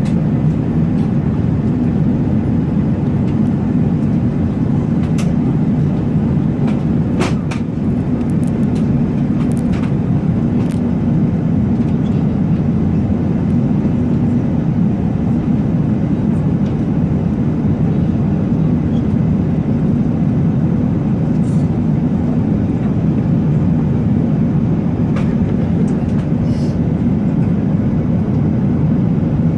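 Steady low rumble of an Airbus A380 airliner, holding even throughout, with a few faint clicks or rattles over it.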